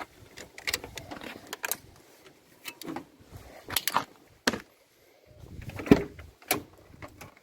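Irregular clicks and knocks of handling as a battery booster pack's clamps are disconnected and the gear is moved, with the sharpest knock about six seconds in.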